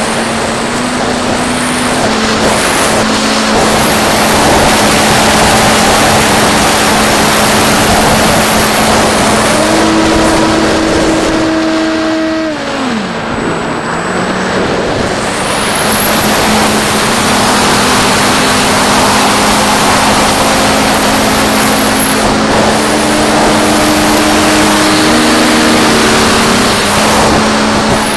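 Electric motor and pusher propeller of a Mako flying wing over heavy wind rush, heard on board. The motor's pitch steps up and down with the throttle, falls away about halfway through as the throttle is cut, and rises again a couple of seconds later.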